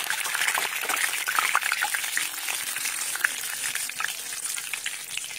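Curry leaves deep-frying in hot oil: a dense, crackling sizzle that eases slightly as the leaves crisp.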